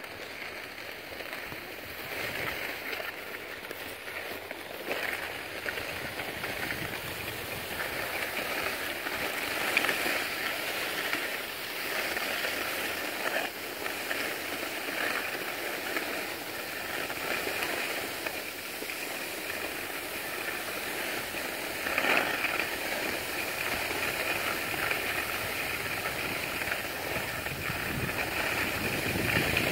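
Skis sliding and scraping over packed, groomed snow: a continuous scraping hiss that swells louder now and then.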